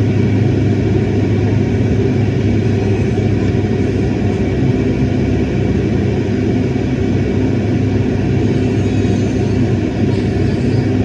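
Airliner cabin noise: the steady drone and low rumble of the jet engines and airflow, heard from a window seat inside the cabin.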